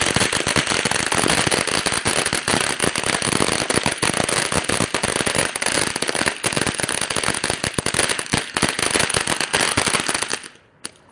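Ground-based consumer firework going off in a dense, continuous stream of rapid crackling pops, cutting off suddenly near the end with one last pop.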